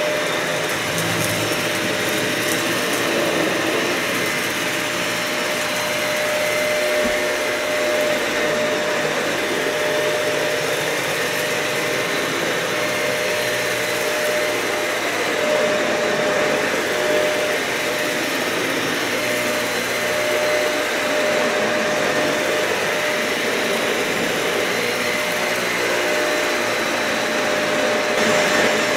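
Dyson vacuum cleaner running steadily over matted carpet: a continuous motor whine over airflow noise, swelling and easing slightly now and then.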